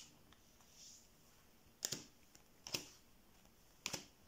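Neapolitan playing cards being drawn from the deck and laid onto the table, with three short card snaps about a second apart.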